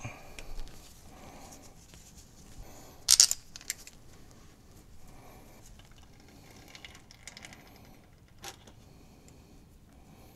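Pliers clicking and scraping against a hose clamp and transmission cooler line, with a sharp metallic clink about three seconds in and a smaller click about eight seconds in, over quieter handling noise.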